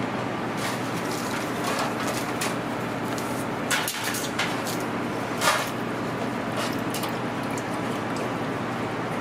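Steady kitchen background hum and hiss, with a few short knocks and rustles as raw duck pieces are handled and dredged in stainless steel pans; the loudest knock comes about five and a half seconds in.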